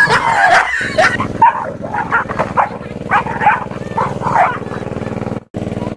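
A small dog barking and yelping in a rapid string at a stuffed toy tiger thrust at it, agitated barking at what it takes for a threat. The barks come several a second and die away after about four and a half seconds.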